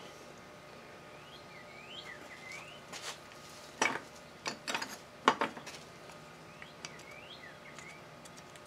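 Small wooden and metal pattern pieces clicking and knocking as they are handled and set down on a wooden workbench, several sharp knocks between about three and five and a half seconds in. A bird chirps short rising notes twice in the background.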